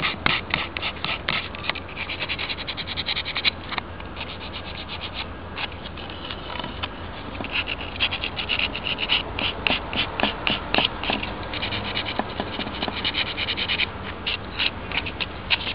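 Sandpaper rubbed in quick, short strokes along the edge of a painted plaque, with a brief lull about four seconds in. This is sanding away the napkin paper left over at the edge, so that it comes off cleanly, as if cut with a knife.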